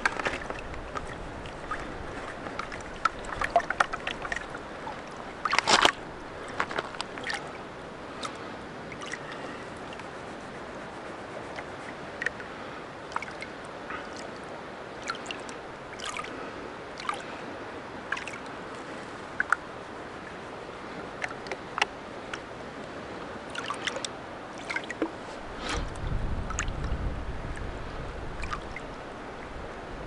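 Water sloshing and splashing in a plastic gold pan as it is swirled and tipped to wash sediment out over the riffles, with scattered small clicks. A low rumble comes in near the end.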